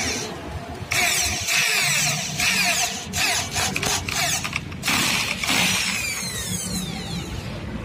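Corded electric drill boring into the frame of a mosquito-net door for a hinge fitting, run in several short bursts of the trigger with brief pauses. Near the end the motor's whine falls as it spins down.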